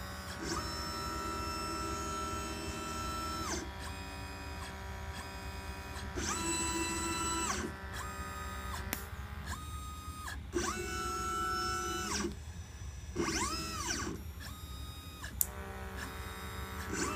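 LitePlacer pick-and-place machine's stepper motors whining in steady tones as the head makes a series of moves, each lasting one to three seconds with short pauses between, one move about two-thirds through rising and then falling in pitch. A few sharp clicks fall between the moves over a steady low hum.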